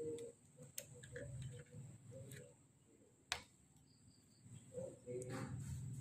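Quiet pause between shots of a PCP air rifle: a faint low hum with a few small handling clicks, and one sharper click about three seconds in.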